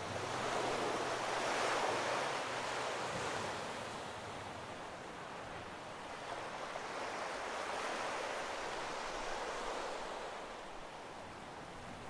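Ocean surf breaking on a sandy beach: a steady rush of waves that swells up about two seconds in and again around eight seconds.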